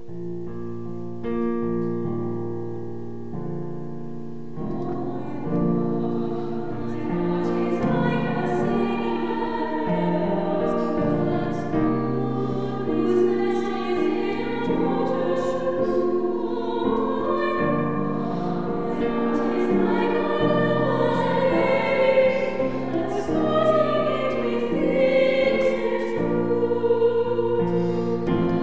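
Church hymn: a piano introduction of held chords, then singing comes in over the piano about five seconds in and carries on.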